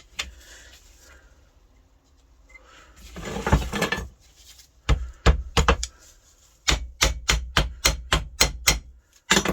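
Hammer striking a metal differential part to knock the unbolted ring gear loose. A few spaced blows, then a quick run of sharp strikes at about four a second.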